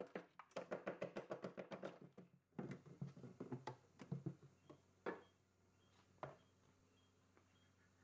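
A screwdriver chipping and scraping at a block of ice frozen in the bottom of a refrigerator compartment: a quick run of taps, about seven a second, for the first two seconds and another cluster after it, then a few single knocks.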